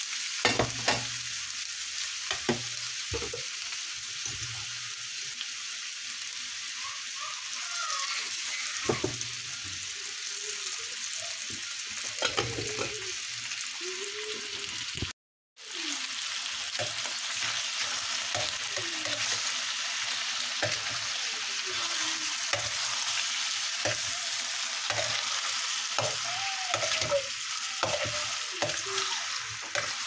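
Diced turkey meat frying in a pan under a glass lid, a steady sizzling hiss with scattered pops and clicks. The sound drops out for a moment about halfway through, then the sizzling resumes.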